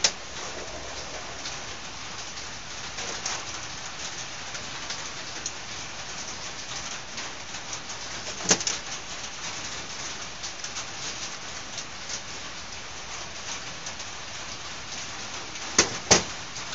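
Small metal carburetor parts clicking and tapping on a steel workbench as a carburetor is handled by hand, over a steady hiss. One sharp knock comes about halfway through and two more close together near the end.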